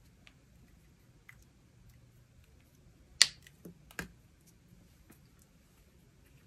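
A few faint ticks, then one sharp click about three seconds in and two lighter knocks just after it, as a pen is set down on paper on a desk and the next pens are handled.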